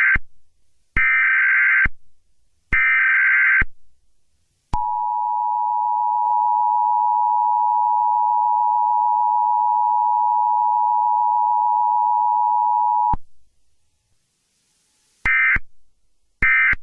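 Emergency Alert System tones from a mock alert: the end of one data burst and two more, each about a second long, then the two-tone attention signal held steady for about eight seconds, then two short end-of-message bursts near the end.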